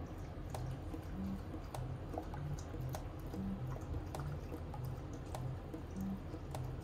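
Shiba Inu puppy lapping water from a bowl, a string of wet clicks and slurps, over soft background music with a slow, even bass line.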